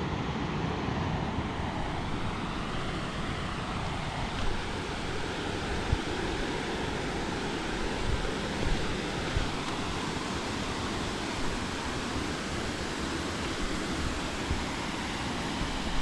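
Steady rushing of a rocky river's rapids, mixed with wind buffeting the microphone.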